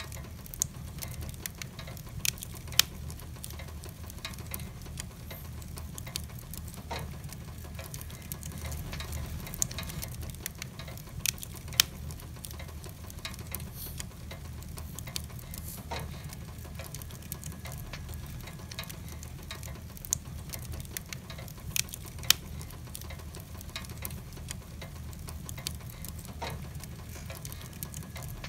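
Wood fire burning in a fireplace, crackling with scattered sharp pops, a few of them much louder than the rest, over a low steady rumble.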